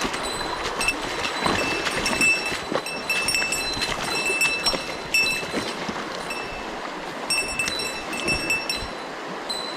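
Mountain stream water rushing steadily, with scattered clicks and knocks throughout. A high, steady whistling tone comes and goes several times.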